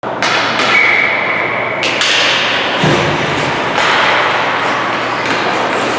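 Ice hockey play in a rink: skates scraping and sticks and puck clacking on the ice around a faceoff. A steady high tone lasting about a second sounds near the start.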